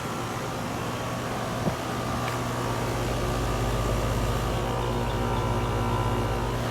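2012 Carrier Comfort air conditioner running as it starts up: a steady electrical hum that grows slowly louder, with a deeper rumble coming in about two and a half seconds in.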